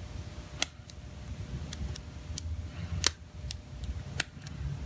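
Lock pick working the wafers of an 18-wafer Chicago Duo padlock: about ten sharp, irregular metallic clicks over a low handling rumble, loudest about three seconds in, as the wafers are set again after a lost false set.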